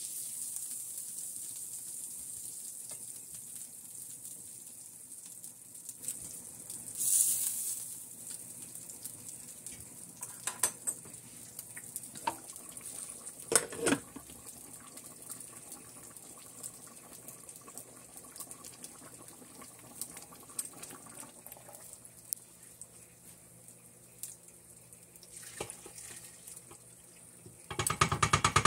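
Kitchen handling sounds around a stainless steel multi-cooker: a faint high hiss, a short louder hiss about a quarter of the way in, and scattered light knocks of metal utensils and cookware. Near the end comes a burst of rapid clattering as a stainless steel bowl is tipped against the cooker's inner pot.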